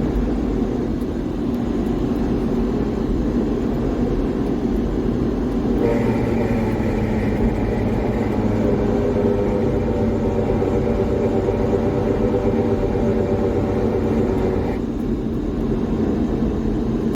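Suzuki Carry DA63T kei truck running, with a steady loud rumble. A whining tone comes in about six seconds in and stops about nine seconds later. The truck's faulty transmission makes a very loud abnormal noise.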